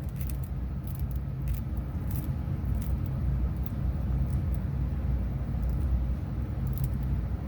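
Steady low background hum, with faint scattered clicks and scrapes of a plastic wire nut being twisted by hand onto stripped copper wires.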